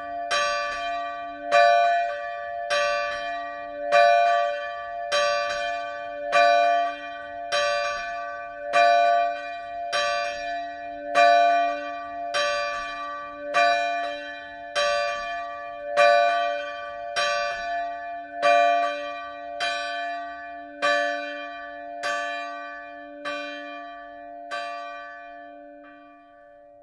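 Swinging church bell, a 1957 Petit & Fritsen bronze bell of 687 mm tuned to d2, struck by its clapper about once every 1.2 seconds as it swings. Toward the end the strikes grow weaker and stop as the swing dies down, leaving the bell's low hum ringing on.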